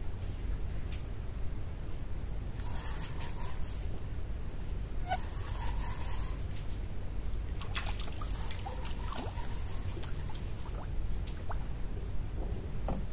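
Water dribbling and splashing as a hooked mangrove snake is hauled up to a wooden boat on a fishing line, with scattered small clicks from rod and reel handling over a steady low rumble and a steady high whine.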